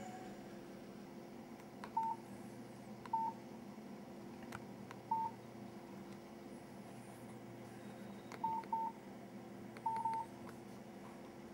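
Nokia 3720 mobile phone's keypad tones as its keys are pressed: short beeps all on one pitch, seven in all at uneven intervals, some in quick pairs, with faint key clicks.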